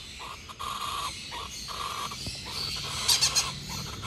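Sun conure chick giving a quick cluster of short, high-pitched squeaks about three seconds in, over faint background noise.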